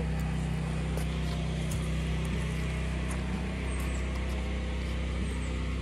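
Pressure washer engine running steadily at an even pitch.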